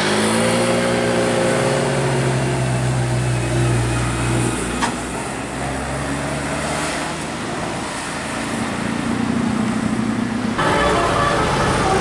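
Tour bus engine running as the bus climbs past around a bend, a low steady drone whose pitch rises slightly in the first second and holds, then fades after about four seconds. Near the end the sound changes abruptly to other passing traffic.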